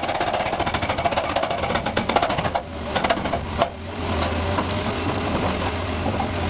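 Continuous rapid mechanical rattling over a steady low hum, dipping briefly twice in the middle.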